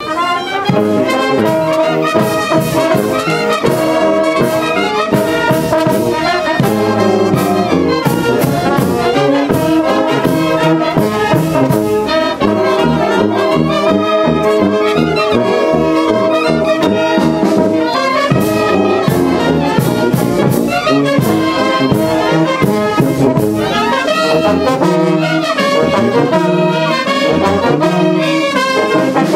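A brass band playing a steady, loud piece, with trumpets and trombones carrying the tune.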